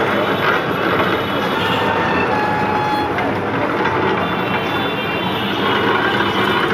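Belt-driven sugarcane juice machine running, its ridged stainless-steel rollers crushing a stalk of sugarcane with steady mechanical noise.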